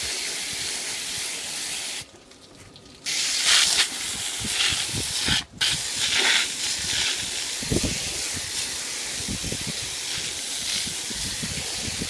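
Garden hose spray jetting water onto a window air-conditioner unit and washing the grime off, a steady hiss. The spray cuts out for about a second two seconds in, comes back louder, and breaks off again briefly a few seconds later.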